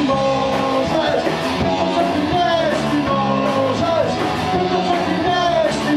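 Live rock band playing loudly, with guitar and a singer.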